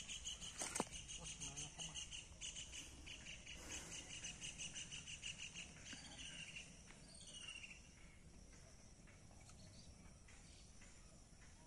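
Faint outdoor ambience with a rapid series of high chirps, several a second, that fades out about six seconds in, followed by a short falling note.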